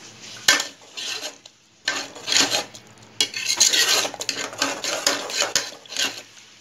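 A metal spoon stirring and scraping thick masala fried in oil inside an open pressure cooker, in a run of irregular scraping strokes with a sharp knock about half a second in.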